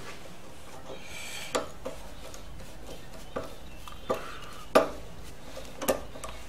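Screwdriver tightening a hose clamp on an air filter adapter: a handful of separate light metallic clicks and scrapes, with a brief rasp about a second in and the sharpest click about three-quarters of the way through.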